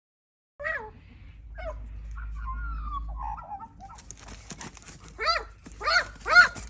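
Dogs at play giving short, high yelping calls, with a wavering whine between them and several louder yelps in quick succession near the end.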